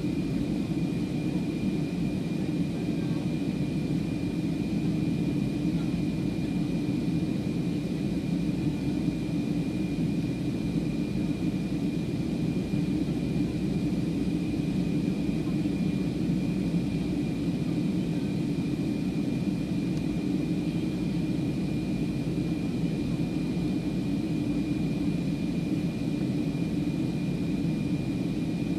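Steady cabin noise of a jet airliner in flight, heard from a window seat: a constant deep rush of engines and airflow with a thin steady high whine on top.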